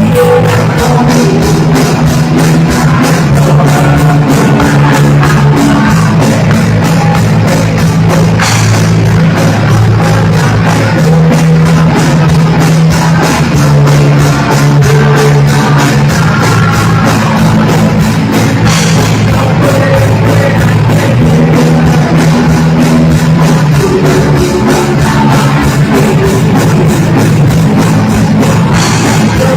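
Loud, distorted punk rock played by electric guitars, bass and a drum kit, with a steady driving beat.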